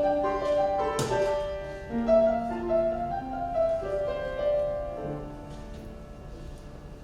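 Closing bars of a choral piece with piano: held chords moving step by step, with a sharp accent about a second in. The final chord dies away about five to six seconds in.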